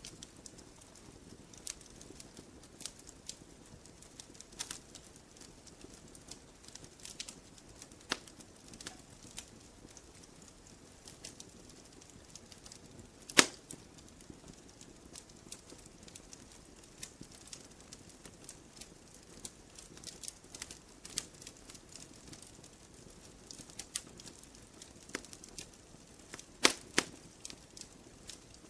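Campfire logs burning: irregular sharp crackles and pops over a low, steady hiss of flame. One loud snap comes about halfway through, and a quick pair of pops near the end.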